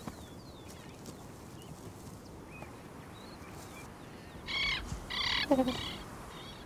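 Animal calls: faint short chirps, then three loud calls in quick succession about four and a half seconds in, the second followed by a short falling sound.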